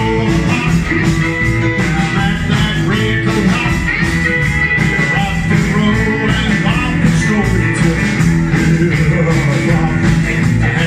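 Live rock and roll band playing: upright double bass, electric guitar, keyboard and drums, with a steady beat.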